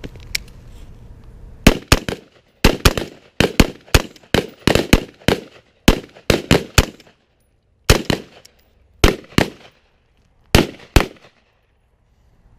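Several rifles on a firing line shooting a string of five rounds each: about two dozen sharp, uneven shots over roughly nine seconds, overlapping at first and thinning out to a last few single shots.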